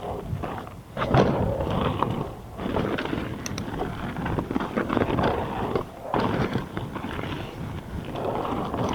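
Mountain bike riding down a dirt trail: tyres rolling and crunching over dirt and roots, with uneven clatters and knocks from the bike over the bumps.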